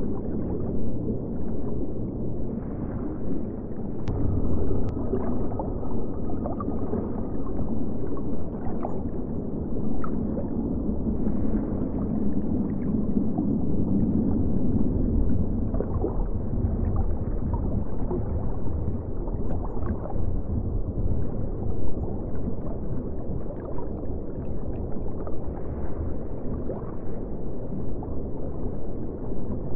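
Steady, muffled low rumble of water, with faint scattered bubbling.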